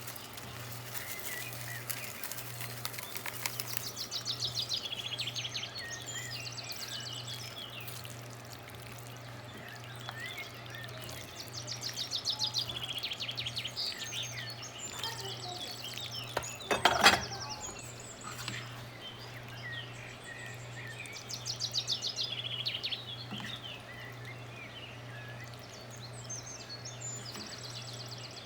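Birds chirping in rapid trills that come back every several seconds, over a steady low hum, with one sharp knock about two-thirds of the way through.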